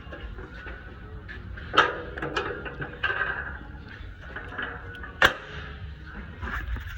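Two sharp knocks about three and a half seconds apart, with softer clattering between them over a low steady rumble.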